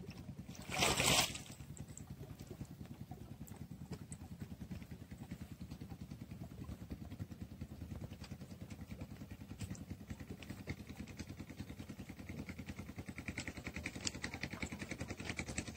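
A small boat engine running steadily with an even, rapid pulse, after a brief loud rush of noise about a second in.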